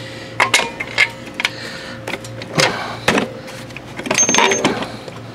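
Clunks, knocks and scraping as a Briggs & Stratton small gas engine is shifted by hand on a lawn mower deck to line up its mounting bolts. There are several sharp knocks in the first three seconds, then a longer rattling scrape with a brief high squeak about four seconds in. The engine is catching on the deck and not sitting flush.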